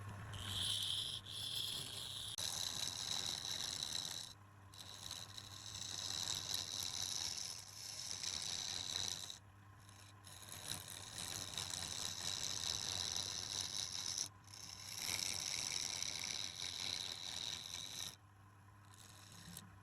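Wood lathe turning with a tool held against the spinning wood. It makes hissing, scraping passes several seconds long with short breaks between them, over the steady hum of the lathe's motor.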